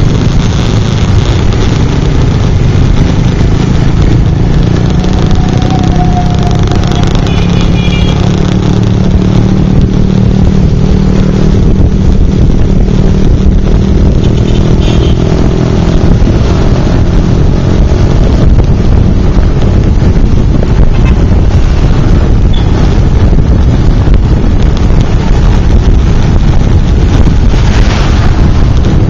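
Motorcycle engine running through traffic under a loud steady rush of wind over the microphone.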